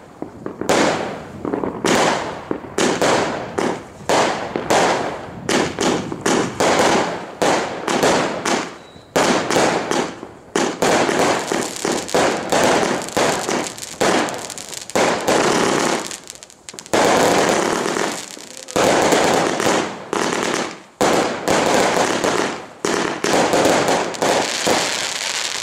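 Fireworks going off in rapid succession: a dense run of bangs and crackling, broken by a few short pauses.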